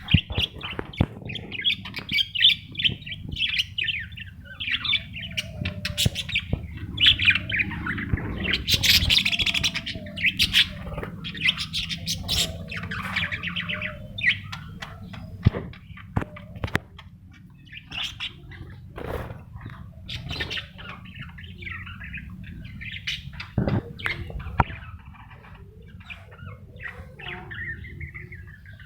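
Budgerigars in a colony chirping and chattering constantly, with many overlapping quick calls and scattered sharp taps.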